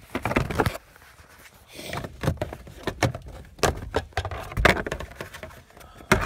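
Irregular knocks, clicks and rustling from a handheld camera being moved around inside a car, with a quieter stretch about a second in.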